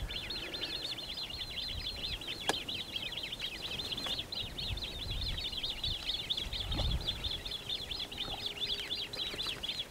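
A small songbird singing a long, fast run of high chirps, several a second, without a break. There is a single sharp click about two and a half seconds in.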